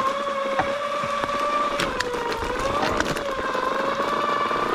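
ATV engine running at a steady pace over rough trail, its whine drifting gently up and down in pitch, with scattered knocks and clatters.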